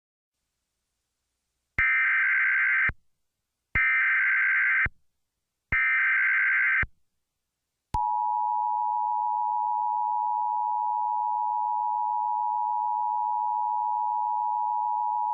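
Emergency Alert System (EAS) alert tones. First come three one-second bursts of buzzing SAME header data tones, about two seconds apart. About eight seconds in, the steady two-tone EAS attention signal begins, announcing an emergency alert, here a tornado warning.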